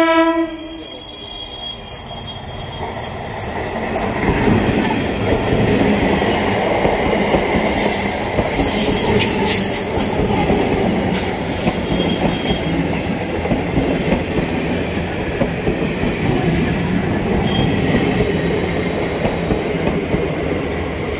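EMU local train approaching and running past close by: a rumble of wheels on rail that grows louder from about four seconds in and stays loud, with scattered clicks and clanks from the wheels and track.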